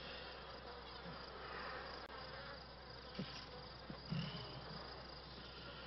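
Faint insect ambience of crickets chirping and flies buzzing, steady throughout, with a couple of soft knocks about three and four seconds in.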